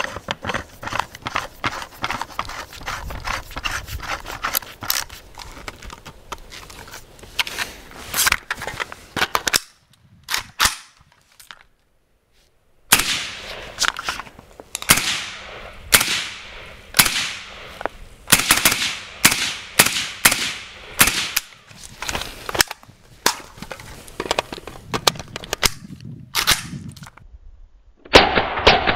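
Suppressed AK-104 rifle (7.62×39 mm) firing. A fast run of shots is followed, about ten seconds in, by a short pause with a couple of clicks. Then come steady single shots about one a second, with the loudest shot near the end.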